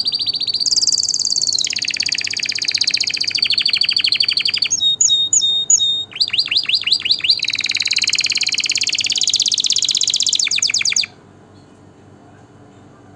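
Canary singing a long song of rapid trills, each run of quickly repeated notes giving way to the next. The song stops abruptly after about eleven seconds.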